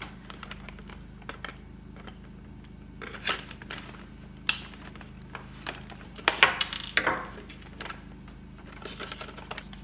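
Handling noise from a toy teddy bear being taken apart: rustling, scraping and clicking as its glued-on fur is cut and pulled away from the plastic head shell. There is a sharp click about four and a half seconds in and a burst of scraping around six to seven seconds in.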